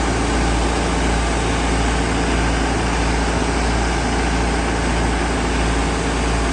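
AOLITE backhoe loader with auger attachment running steadily: an even engine-like drone with a strong low hum and a hiss over it, with no change in pitch or level.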